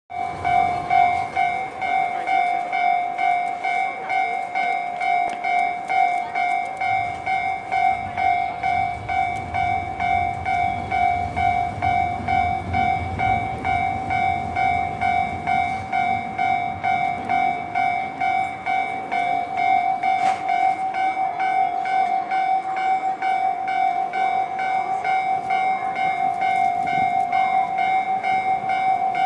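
Japanese level-crossing alarm bell dinging in a fast, even rhythm the whole time, with the low rumble of a limited express train passing over the crossing for several seconds in the middle.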